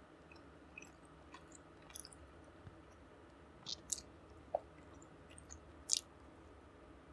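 Close-miked eating: chewing with scattered wet mouth clicks and smacks, the loudest about four and six seconds in.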